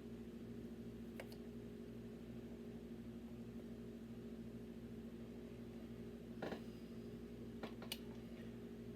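A few small clicks of Lego Technic plastic pieces being handled: one faint click about a second in, a louder one about six and a half seconds in, and two close together near the end. A steady low hum runs underneath.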